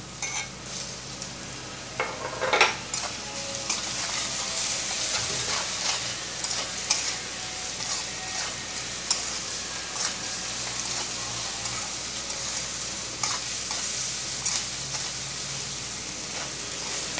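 Chopped prawns and onions sizzling in hot oil in a metal kadai, stirred with a metal spatula that scrapes and knocks against the pan; the loudest knock comes about two and a half seconds in. The sizzle grows fuller after about four seconds.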